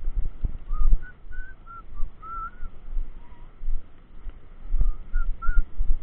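Wind buffeting and road rumble on a bicycle-mounted action camera while riding on pavement, uneven and bumpy. A run of short, high chirps comes through over it, a cluster about a second in and a few more near the end.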